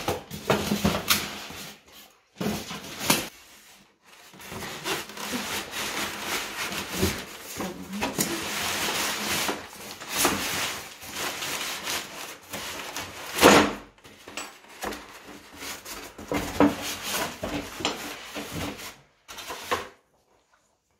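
Polystyrene foam packaging rubbing and scraping in irregular stretches as it is worked loose and lifted off a gas hob, with a sharp knock about two-thirds of the way through.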